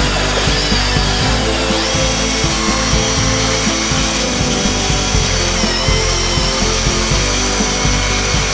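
Chain sawmill ripping a 20-inch-wide cut along a log: a steady, high-pitched whine of the chain cutting through wood over a hiss of sawing, the whine stepping up in pitch about two seconds in. Background music plays underneath.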